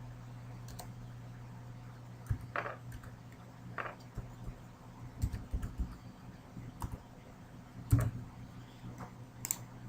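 Scattered keystrokes on a computer keyboard, a dozen or so irregular clicks as a code is typed in, over a low steady hum.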